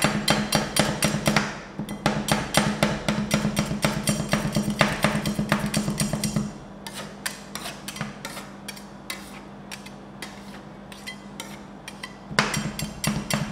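Two metal spatulas chopping dried persimmon into liquid cream on a steel rolled-ice-cream cold plate: a fast run of sharp metallic taps. After about six seconds the taps thin out to scattered strokes, then speed up again near the end.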